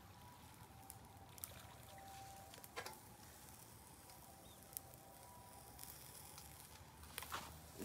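Faint, sparse crackles and pops from chicken gizzard skewers grilling over charcoal in a shichirin, with a small cluster of pops near the end.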